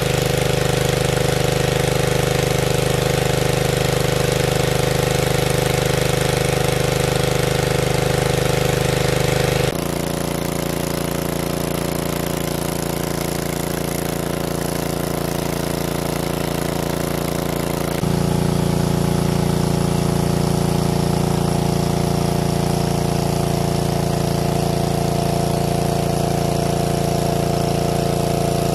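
Large-capacity 500cc engine-driven water pump running steadily under load, drawing water out of the pool. Its note changes abruptly twice, about ten and eighteen seconds in.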